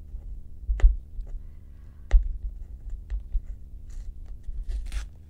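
Hands working open a taped cardboard parcel: low bumps and knocks of handling, two sharp clicks about a second and two seconds in, then a scratchy rustle and tearing of tape and packaging near the end.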